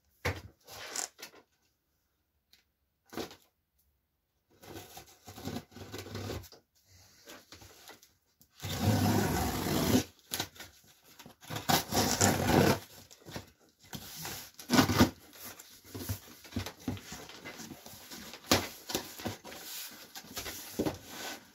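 Packing tape being slit and torn open on a large cardboard box, with the cardboard flaps scraping and rustling as they are pulled back. It comes in uneven bursts with short pauses, and there are two longer rasping tears about nine and twelve seconds in.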